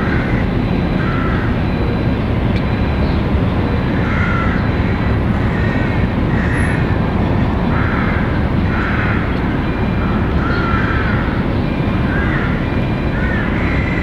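Street ambience: a steady low rumble with short bird calls repeating every second or so.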